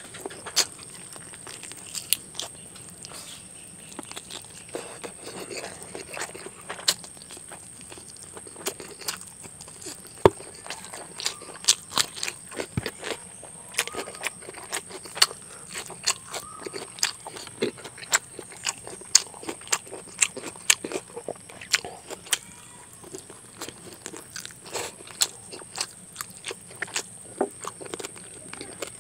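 Close-up eating sounds of chicken curry and rice eaten by hand: wet chewing and lip smacking, with many sharp clicks and crunches as meat is bitten off a chicken leg bone.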